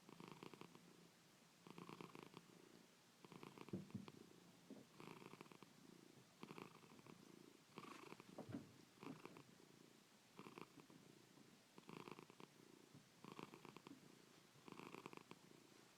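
A cat's faint snoring purr, each breath a burst of rapid fluttering that swells and fades about every second and a half. There are two brief louder sounds, about four and eight and a half seconds in.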